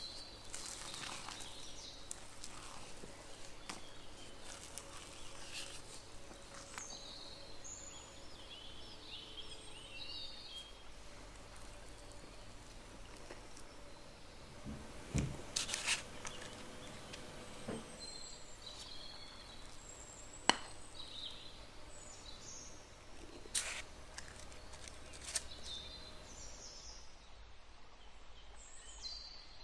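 Quiet batter-handling sounds: soft scraping as thick muffin batter is folded in a glass bowl and scooped out, with a few sharp clicks and taps from the metal scoop and spoon about halfway through and later. Faint bird chirps come and go in the background.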